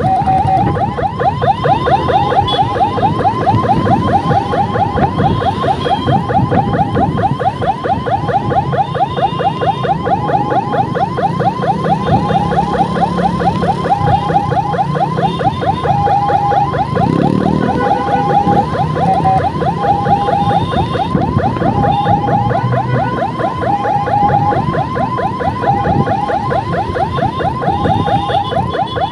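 Electronic siren sounding a fast warble, rapid rising sweeps many times a second, with short steady tones breaking in now and then. Underneath runs the low rumble of the scooter's engine and road noise.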